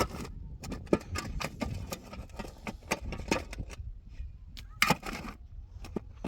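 A series of irregular sharp knocks and clicks, the loudest about a second in and near five seconds in, over a steady low rumble.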